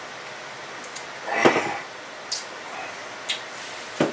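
Men chugging from bottles, with a short loud gasp for breath about a second and a half in, a few small clicks, and a sharp knock near the end as a green glass malt-liquor bottle is set down on the wooden table.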